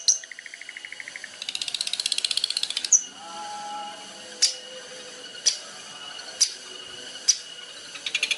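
Songbird song, as used in a training recording for cage birds. It opens with fast trills of rapid repeated chirps, then gives four sharp chip notes about a second apart over softer steady whistled notes, and another fast trill starts near the end.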